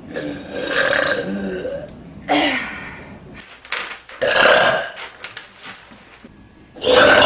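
A woman belching several times in a row: a long burp at the start, shorter ones about two and four seconds in, and a loud one near the end.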